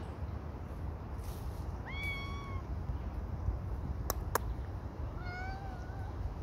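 Long-haired tabby cat meowing twice: a short meow that rises and then holds, and about three seconds later a longer, wavering one. Two sharp clicks come between the meows.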